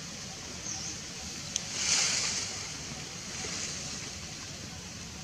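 Steady outdoor background noise like wind on the microphone, with a sharp click about a second and a half in and a brief swell in the hiss just after.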